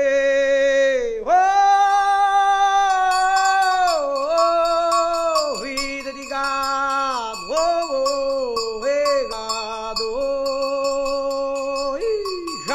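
A man singing a wordless aboio, the Brazilian cowherd's cattle call, in long held notes that each fall away at the end.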